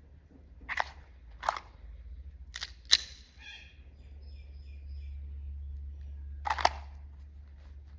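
About five sharp cracks at irregular intervals, two of them close together about three seconds in and the last near the end, over a low steady rumble.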